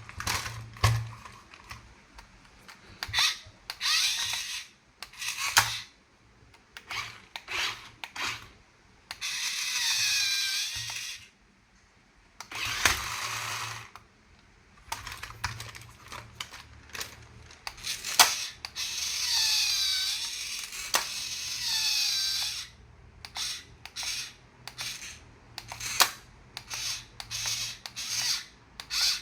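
Clicking and rattling of plastic toy parts being handled and worked, interrupted by longer bursts of electronic toy sound effects with a sweeping, warbling tone, about nine seconds in and again near twenty seconds.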